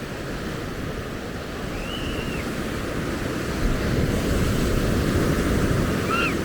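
Surf washing onto a sandy beach, swelling about three seconds in, with wind rumbling on the microphone. A short high chirping call sounds twice over it.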